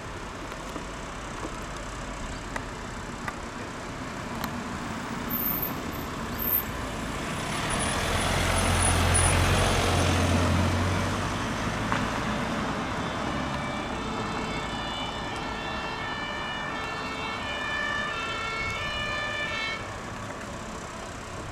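A motor vehicle drives past, loudest about eight to eleven seconds in. It is followed by the alternating two-tone wail of an emergency vehicle's siren, quieter than the pass-by, which cuts off suddenly near the end.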